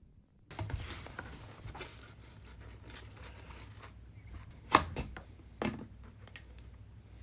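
Hands handling craft materials: rustling and scraping with scattered sharp clicks and knocks, the two loudest about a second apart near the middle.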